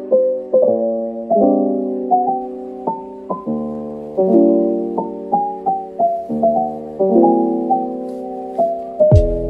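Background music: a gentle piano melody over held chords, with notes changing about every half second. Deep bass and a drum hit come in near the end.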